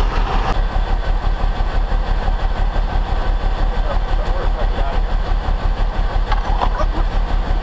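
Heavy-duty tow truck's diesel engine idling steadily close by, with an even low pulse.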